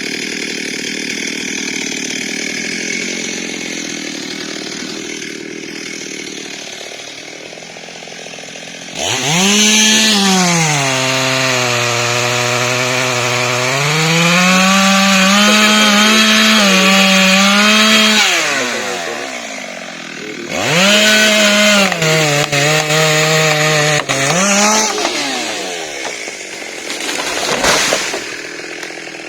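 Chainsaw cutting into a rubber tree. It runs lower for the first several seconds, then revs hard about a third of the way in. Its note sags and climbs back as it works through the wood, then eases off. It revs again for a few seconds later on, with a brief blip near the end.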